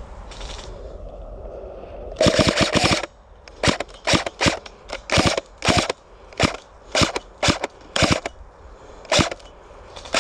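Airsoft AUG rifle firing: a short rapid burst about two seconds in, then a string of quick single shots and pairs, roughly one or two a second.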